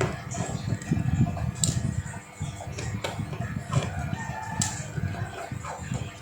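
Background music with a low, pulsing beat and a sharp click about every second and a half. A long call that falls in pitch, like a bird or animal, sounds through the middle.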